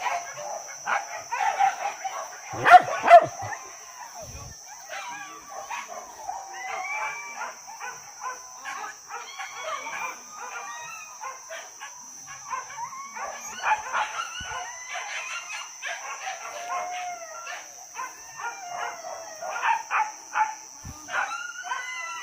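A pack of boar-hunting dogs baying and yelping on the chase: many overlapping calls that rise and fall in pitch, loudest about three seconds in.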